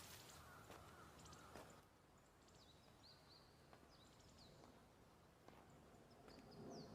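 Faint outdoor ambience with small birds chirping: a handful of short, high chirps that slide downward in pitch, over a low hiss.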